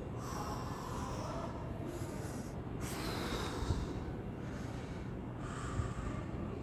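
A person breathing in and out close to the microphone, several hissy breaths over a steady low rumble, with two soft thumps in the second half.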